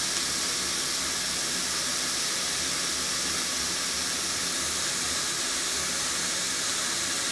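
Chopped onions frying in hot oil in a stainless steel pot: a steady sizzling hiss.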